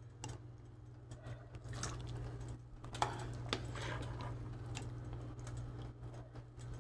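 Light, irregular clicks and taps of a utensil against a stainless steel pot and bowl as boiled chicken pieces are lifted out of the broth and set in the bowl, two of them a bit sharper about three seconds in. A steady low hum runs underneath.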